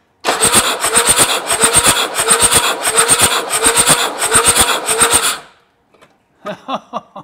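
Starter motor cranking a Mercedes-Benz five-cylinder turbo diesel for about five seconds with a rhythmic pulse, then stopping abruptly. The engine is dragging a little, like something is scraping inside it, while cylinder three, the one under test, gives a low compression reading (240 psi).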